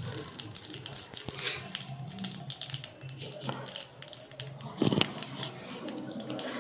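Mustard seeds sizzling and popping in hot oil in a small tempering ladle: a steady scatter of small crackles, with one louder pop about five seconds in.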